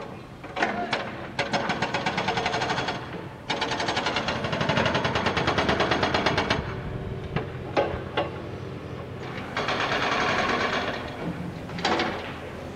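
Construction-site power tool hammering rapidly in three bursts of about one and a half to three seconds, with single sharp knocks in between.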